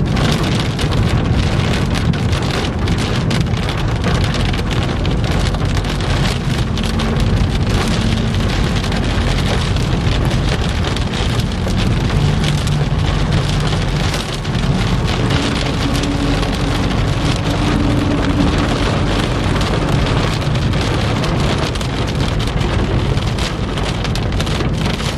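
Heavy, wind-driven thunderstorm rain pelting a car, a dense steady patter of drops, with a low hum from the vehicle underneath.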